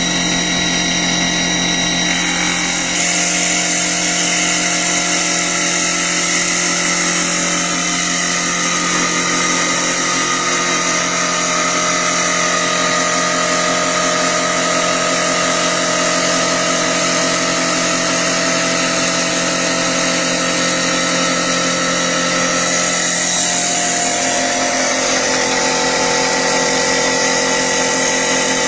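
CNC wood-turning lathe spinning and cutting a wooden blank, a loud steady machine hum with several whining tones that shift in pitch a few times.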